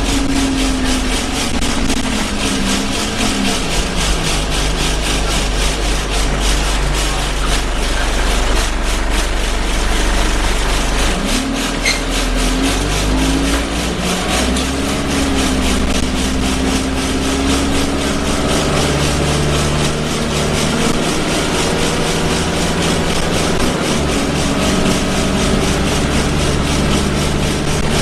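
Inside an Alexander Dennis Enviro 200 single-deck bus on the move: the diesel engine's tone rises and falls several times as it pulls away and changes gear, under a loud, continuous vibration noise from the bus.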